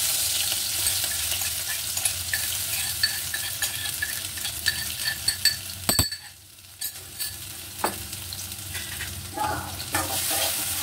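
Sliced onion and green chilli sizzling as they hit hot mustard oil in an aluminium kadai, a steady hiss that starts suddenly, with light clinks and a sharp knock about six seconds in. Near the end a spatula stirs and scrapes the pan.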